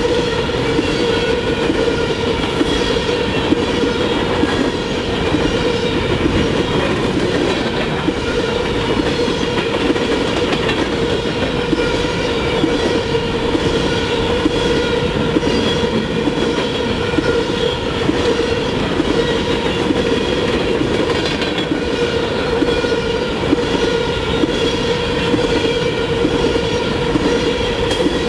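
Empty open-top coal cars of a freight train rolling steadily past, their wheels rumbling and clacking over the rail. A steady metallic whine from the wheels runs over the rumble.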